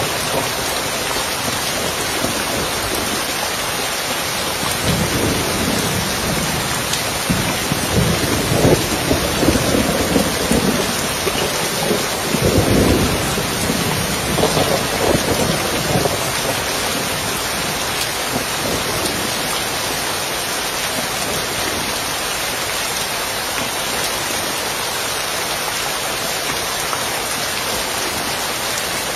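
Steady rain pattering on a roof, an even hiss throughout. Rolling thunder rumbles low under it several times in the first half, loudest about twelve seconds in, then fades back to rain alone.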